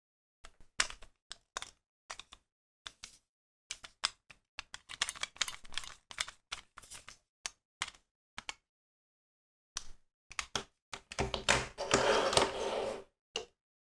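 Hard plastic toy belt parts of a DX Genesis Driver clicking and clacking as they are handled, in quick irregular taps. About eleven seconds in comes a denser couple of seconds of scraping and clatter as the plastic belt straps are handled on a wooden table.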